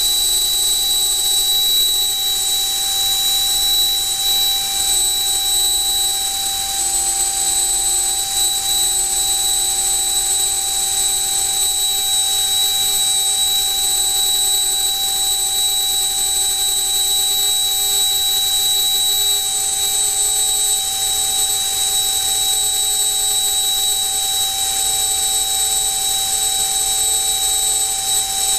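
LEDF68-1A35 68 mm electric ducted fan running steadily on a 14.8 V 4S battery, a jet-like whine with a steady high tone over rushing air. It holds constant power on a thrust stand, pushing about 1.45 kg of thrust; a lower hum within it creeps slowly up in pitch.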